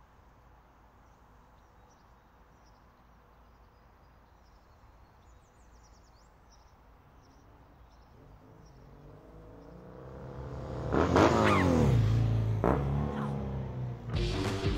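Quiet street background with a few faint bird chirps. Then motorcycle engines grow louder and race past one close after the other, the engine pitch dropping sharply as each goes by.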